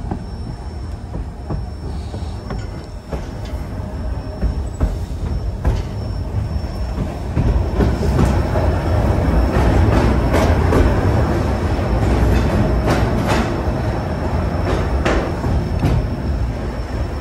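White Pass & Yukon Route narrow-gauge train rolling along the track: a steady low rumble with scattered sharp clicks and clanks of wheels and couplings, growing louder about seven seconds in.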